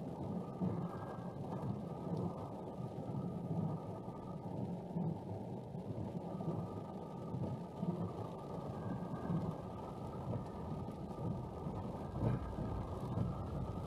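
A car's engine and tyre noise heard from inside the cabin while driving: a steady low rumble with no distinct events.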